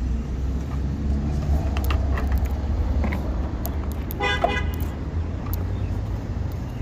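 Steady low rumble of a nearby idling vehicle engine, with a short car-horn toot about four seconds in.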